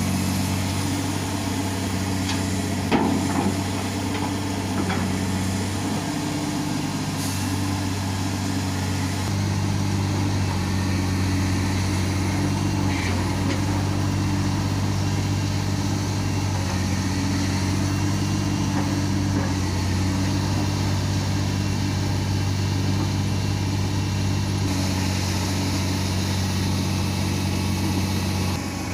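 Heavy diesel engine of a Komatsu excavator running steadily under work, its note shifting slightly a few times, with a single knock about three seconds in.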